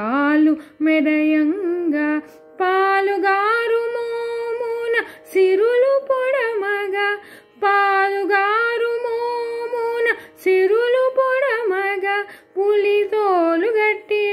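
A female voice singing a Telugu Carnatic song unaccompanied except for a faint steady drone, in long held, ornamented notes with brief pauses between phrases.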